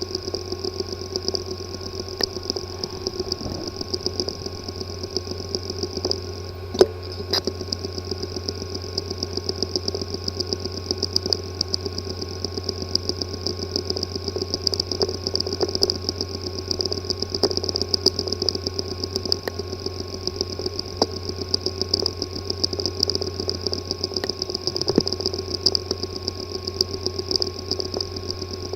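3.5-inch hard drive with a physically damaged disk assembly, running with a steady buzzing whir and fast fine ticking, with a sharper click about seven seconds in. The noise is the sign of internal mechanical damage to the drive.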